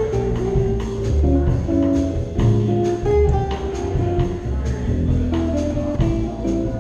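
Live jazz trio playing: a hollow-body electric guitar picks a melody over upright double bass and a drum kit, with cymbals keeping a steady beat.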